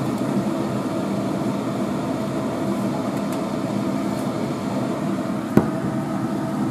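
A steady mechanical hum with a low drone, and one sharp knock about five and a half seconds in: a glass mason jar, lifted out of the boiling water-bath canner with jar-lifter tongs, set down on a wooden board.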